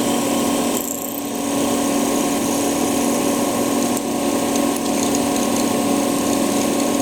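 Felder FD 250 mortising machine running steadily at 1500 RPM, driving a 6 mm square hollow chisel into walnut, with a short dip about a second in.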